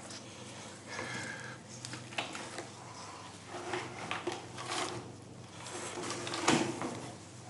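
Rubbing, sliding and knocking of rolled pork belly being pushed by hand through an orange plastic netting tube into elastic meat netting, in short irregular bouts over a low steady hum.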